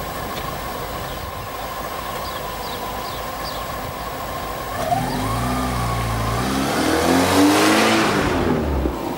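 A car pulls away and accelerates, its engine note rising in pitch, then passes close by, loudest near the end before dropping away. Before it moves off there is only a steady outdoor hiss.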